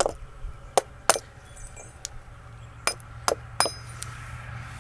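Wooden mallet tapping a carving chisel into a log: six sharp strikes at irregular spacing, three in the first second or so and three more close together near the end.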